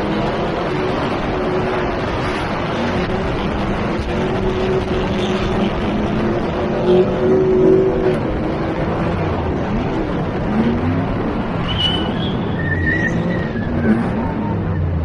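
Ford 5.0 fuel-injected V8 of a drift truck running hard under heavy wind rush on the microphone, its pitch rising and falling with the throttle while drifting. Short high tyre squeals near the end.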